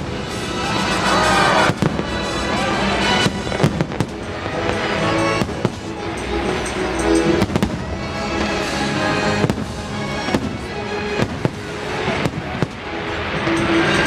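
Fireworks bursting: a dozen or so sharp bangs at irregular intervals over steady show music played through loudspeakers.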